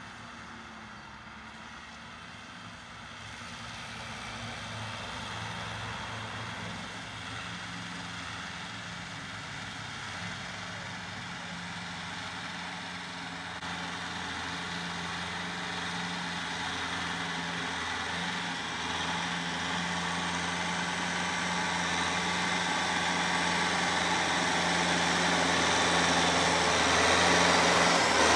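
Kubota tractor's diesel engine running steadily under load while pulling a rotary tiller through the soil. It grows steadily louder as the tractor comes closer.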